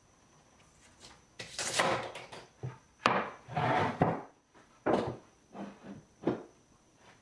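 A birdseye maple board being handled in the shop: a string of wooden knocks and short scrapes as it is lifted off a wooden workbench and laid on a miter saw.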